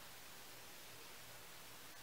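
Near silence: a steady faint hiss of room tone.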